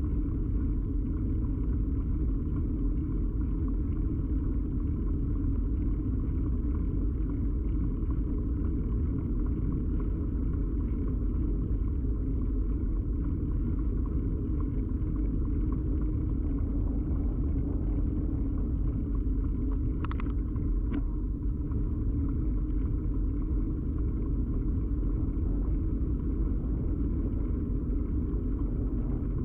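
Steady low rumble of a bicycle ride, picked up through a camera fixed to the bike, with two brief sharp clicks about two-thirds of the way through.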